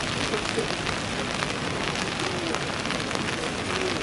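Steady rain falling: an even hiss made up of many small, quick drop hits.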